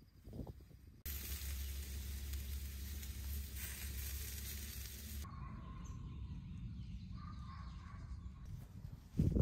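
Marinated goose sizzling on a grill grate over hot charcoal: a steady sizzling hiss for about four seconds, which then drops off abruptly to a quieter outdoor background with a few faint calls. A couple of loud knocks come right at the end.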